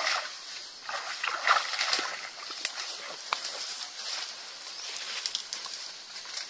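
Muddy stream water sloshing around wading legs, then leaves and palm fronds rustling and snapping as someone pushes up through bushes, with a few brief voices.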